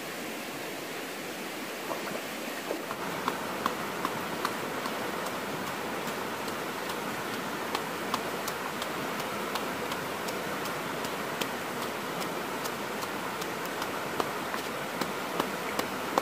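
Steady rushing hiss of flowing stream water, with irregular sharp crackling ticks from a wood fire, one or two a second.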